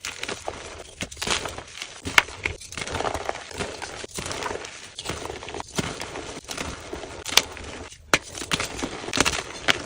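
Dyed, reformed gym chalk being crushed and crumbled by hand: an irregular run of dry crunches and crackles, with sharp cracks as pieces snap.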